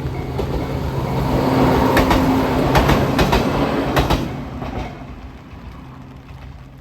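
Electric train passing a railway level crossing: its wheels clack over the rail joints, loudest about two to four seconds in, then fading as it moves away. The crossing bell's last dings fade out at the very start.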